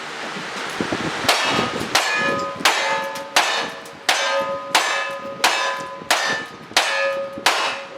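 A steady string of about ten gunshots, roughly one every 0.7 seconds starting about a second in, each followed by the ring of a struck steel target.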